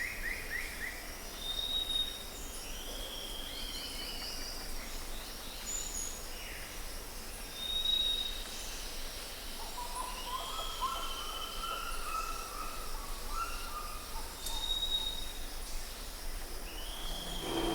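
Forest ambience: several birds calling, with short high whistles repeated every few seconds, drawn-out downslurred calls, and a run of lower notes about ten seconds in, over a steady high hiss.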